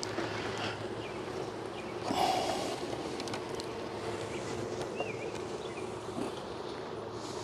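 Honeybees buzzing steadily around an open hive, with a few light clicks of frames being handled and a short breathy puff about two seconds in.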